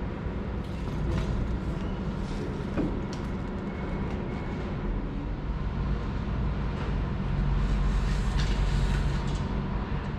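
Steady low machine rumble that grows somewhat louder in the second half, with scattered light clicks and knocks.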